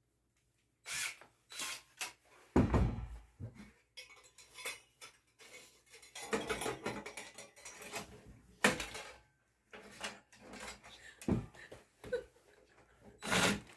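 Sheet-metal wood stove and flue pipe parts clanking and knocking irregularly as they are handled and fitted together, with a sharper knock about two and a half seconds in and another near the middle.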